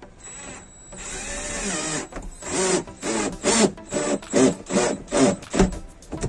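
Cordless drill-driver driving a screw into a window anchoring block: about a second of continuous running with the motor pitch rising and falling, then about eight short trigger bursts in quick succession as the screw is driven home.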